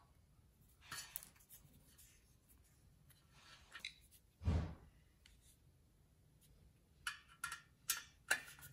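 Small steel bolts being handled and fitted into a steel TV-mount bracket plate: faint clicks about a second in and a dull thump about halfway. Near the end, a quick run of short sharp clicks as a screwdriver is worked on the bolt heads to drive the bolts in.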